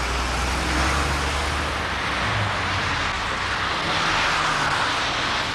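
Road traffic on a wet road: an articulated lorry's engine rumbling low as it pulls away, fading about two seconds in, with a steady hiss of tyres from passing cars.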